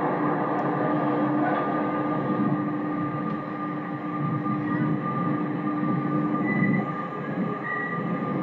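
Fairground ride machinery running: a steady mechanical rumble with a held hum, and a couple of short high squeaks near the end.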